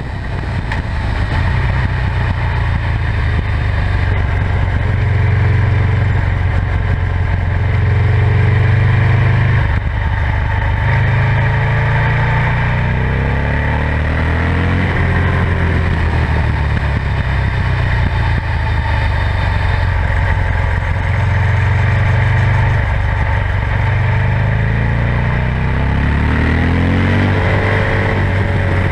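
A 2007 Buell XB9SX's air-cooled V-twin running through its stock (original) exhaust while the bike is ridden through bends: a steady low engine note that rises in pitch twice as the throttle is opened, about halfway through and again near the end.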